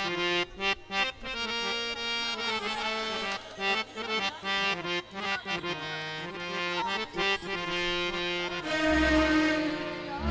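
Instrumental interlude of Punjabi folk music from a small stage band: a reedy, held-note melody line with tabla strokes under it, and a few deep thumps about nine seconds in.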